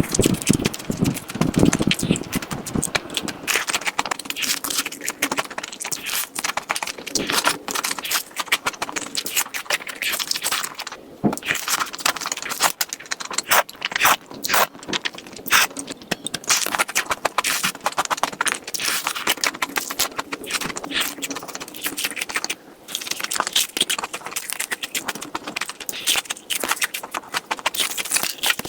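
Close-miked eating sounds: chewing and crunching food in a dense, irregular run of crisp clicks and crackles.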